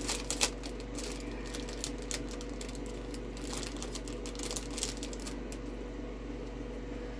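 Plastic packaging of a sticker pack crinkling and clicking as it is handled, in scattered bursts clustered in the first second and again around four to five seconds in, over a steady low hum.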